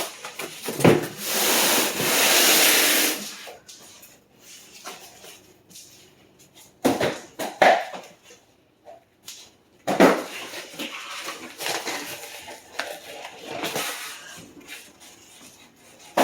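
Packing paper being torn and rustled in long noisy strokes for the first three seconds, then a few sharp knocks and more rustling of the packaging as it is handled.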